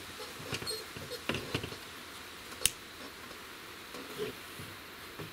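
The magazine of a Gamo Swarm Magnum 10X Gen3i break-barrel air rifle being fitted into its inertia-fed magazine housing: light handling rattles, then a single sharp click a little under three seconds in as it snaps into place.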